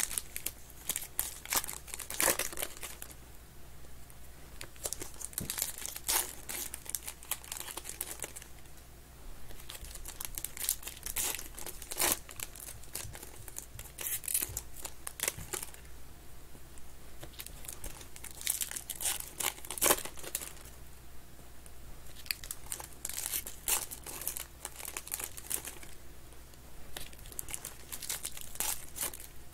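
Foil wrappers of 2021 Panini Contenders football card packs crinkling and tearing as they are pulled open by hand, in irregular crackly bursts.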